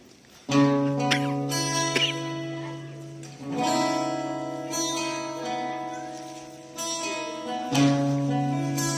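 Guitar playing a slow song intro: sustained chords that ring out, starting about half a second in and changing twice.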